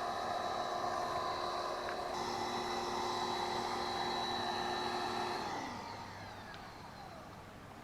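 Electric pressure washer motor and pump running steadily with a high whine, then switched off about five and a half seconds in, its pitch sliding down as it winds to a stop.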